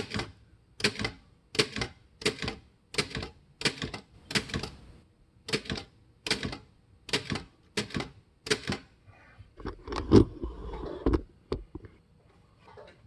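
Underwood Standard manual typewriter keys struck one at a time, about a dozen sharp type-bar strikes, roughly one every 0.7 seconds, as the keys are tested one by one. About ten seconds in comes a louder, heavier mechanical clatter, followed by a few light clicks.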